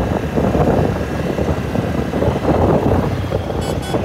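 Ride noise of a scooter moving through traffic: a steady rumble of engine and rushing air on the microphone. Near the end comes a quick cluster of short horn beeps.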